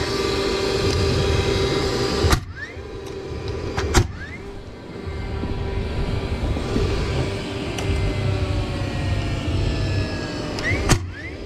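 Cordless framing nailer driving nails into pine 2x4 boards: two sharp shots, about two and four seconds in. A steady motor hum runs underneath; it drops away after the first shot and comes back about five seconds in.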